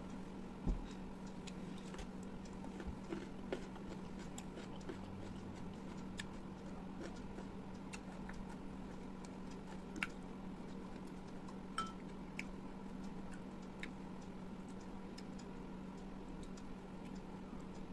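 Scattered light clicks and taps of dishes and plates, with one louder thump about a second in, over a steady low electrical hum.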